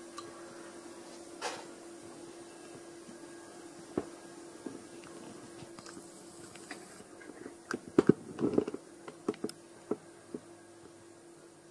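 Philips Avent SCF870 steamer-blender steaming, a faint steady hum with scattered small clicks and knocks, the loudest cluster about eight to nine seconds in.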